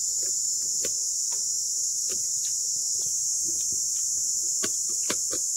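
Steady high-pitched chorus of insects buzzing in the summer vegetation, with scattered short clicks over it.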